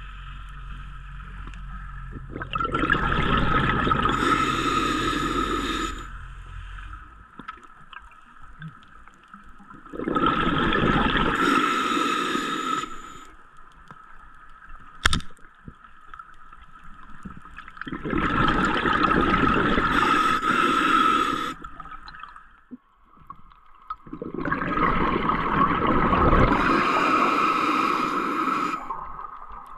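Scuba diver breathing underwater: exhaled breath bubbling out of the regulator in four long gurgling bursts, about one every eight seconds, with quieter stretches between. One sharp click about halfway through.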